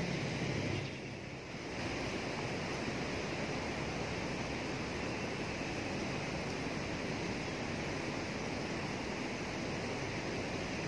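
Fast water rushing steadily through a sluice-gate channel, briefly dipping about a second in.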